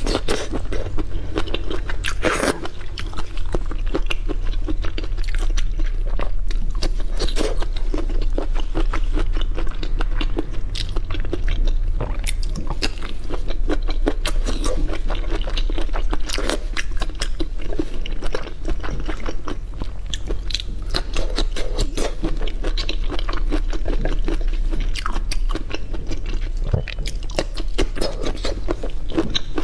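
Close-miked chewing and biting of soy-marinated raw shrimp: a dense, irregular run of wet mouth clicks, smacks and crunches, over a steady low hum.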